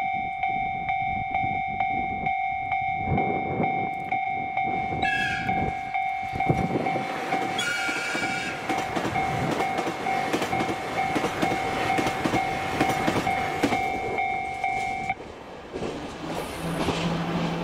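Diesel limited express train passing at speed, its wheels clattering over the rail joints, with two short horn blasts as it leaves the tunnel. A level crossing alarm rings steadily throughout and stops near the end.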